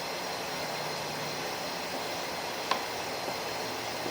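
Steady mechanical background hum, with one sharp click about two and a half seconds in.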